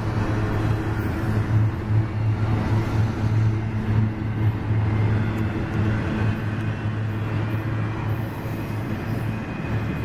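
Double-stack container cars of a CSX freight train rolling past, a steady rumble of steel wheels on the rails.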